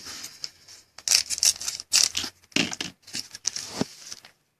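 A trading card pack's wrapper being torn open and crinkled by hand, in irregular short rips and rustles.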